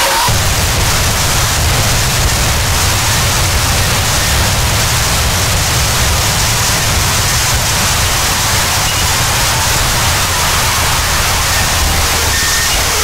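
Harsh electronic noise music: a dense, loud wall of static hiss spread across all pitches over a heavy low rumble that cuts in right at the start and then holds steady. Near the end a few faint steady tones show through the hiss.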